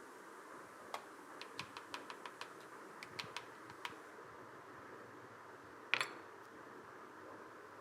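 Faint light clicks and taps from kitchen handling, a quick cluster of them over a few seconds, then one short louder scrape about six seconds in, over a steady low hiss.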